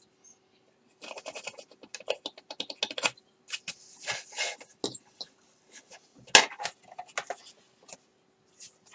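Rapid, irregular small clicks and short scrapes of a hand tool and plastic model-kit parts being worked and handled, with one sharper click about six and a half seconds in.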